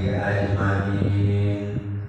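A man's voice chanting an Arabic opening prayer into a microphone, in long, drawn-out melodic phrases.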